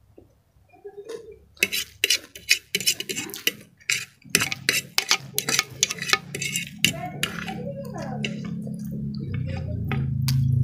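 Eating sounds: a metal fork clicking and scraping on a ceramic plate of fried noodles, with close chewing and mouth sounds, in quick irregular clicks. Low background music fades in from about four seconds in and grows louder toward the end.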